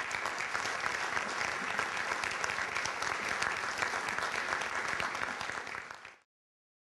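Audience applauding steadily, a dense patter of many hands clapping. It cuts off abruptly about six seconds in.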